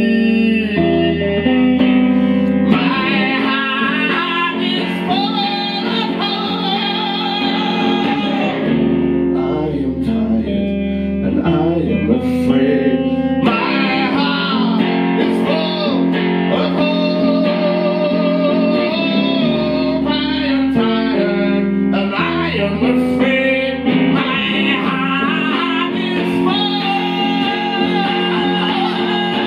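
Live electric guitar played through an amplifier, with a man singing over it.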